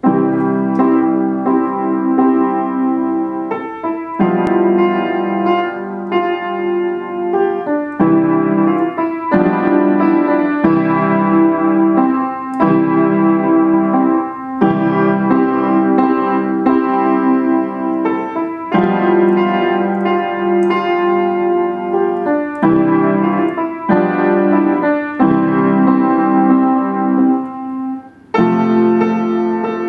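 A child playing a solo piano piece, her own composition, as a continuous run of notes and chords, with a short break near the end.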